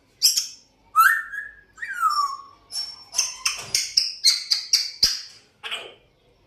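African grey parrot whistling: a few separate calls, two of them sliding whistles, one rising and one falling, then a quick run of about ten short, high chirping notes.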